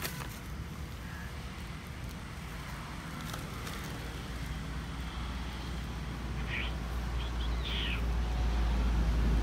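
Low, steady rumble that grows louder toward the end, with a few short high chirps about two-thirds of the way in.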